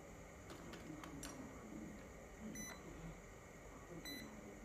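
UNI-T digital multimeter giving two short, high electronic beeps about a second and a half apart while it is being handled, after a few light clicks.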